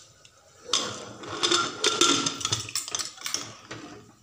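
Aluminium pressure cooker lid being fitted on and turned shut, with metal-on-metal scraping and clinking starting about a second in and lasting about three seconds.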